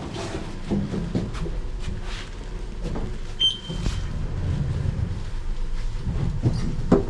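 Low rumble of a vehicle on the move, with scattered knocks and rattles and a short high beep about three and a half seconds in.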